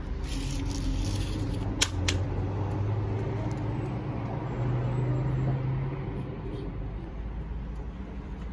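A car engine hums steadily, loudest about five seconds in, then fades as the car moves off. Two sharp clicks come about two seconds in.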